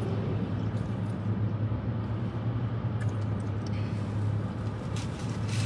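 Steady low rumble of a car engine running, with faint small clicks near the end.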